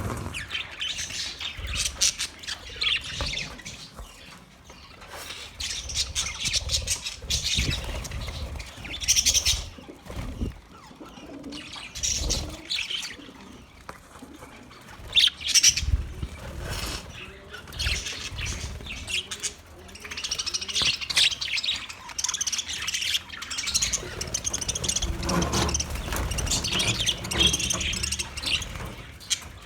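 Budgerigars chattering and chirping continuously in a rapid, warbling stream, with a few low thuds in between.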